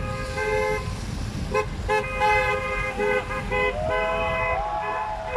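Several vehicle horns honking at once in long, overlapping blasts, with a few short toots a couple of seconds in, over a low traffic rumble.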